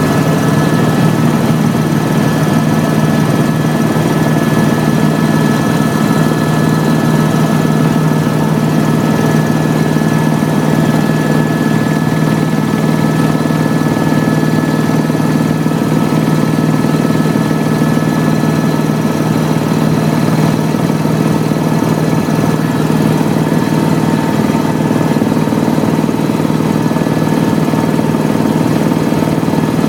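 Tour helicopter in flight: steady engine and rotor drone with a thin, steady whine above it.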